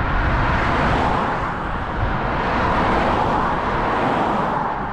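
A motor vehicle passing on the road, a broad rushing noise of tyres and engine that swells to its loudest in the middle and eases off near the end.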